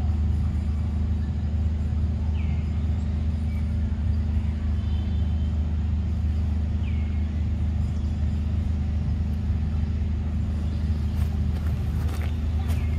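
Steady low mechanical hum, like a motor running, with a few faint short high calls and light clicks over it.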